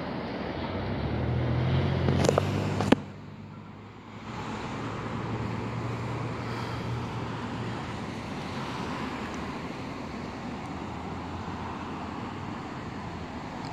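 Road traffic passing. A vehicle's engine hum and tyre noise build up over the first three seconds and cut off abruptly with a sharp click. Then another vehicle's hum and tyre noise rise and slowly fade.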